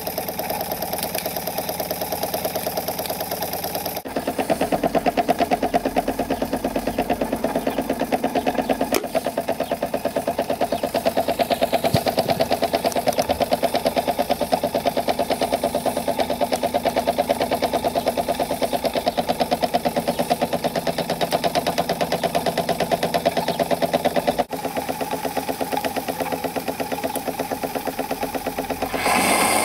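Handmade model saddle steam engine running steadily, its exhaust beating rapidly and evenly, louder from about four seconds in. A brief burst of hiss comes near the end.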